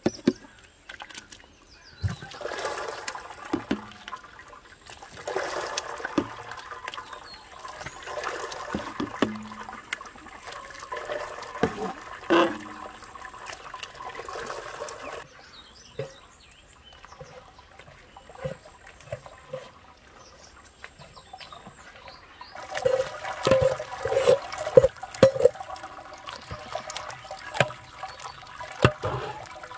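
Enamel ladle scooping cooked peach mash and juice from a steel pot and pouring it into a metal colander, with liquid sloshing and splashing. Near the end, a run of sharp clinks as the ladle knocks against the metal pot and colander.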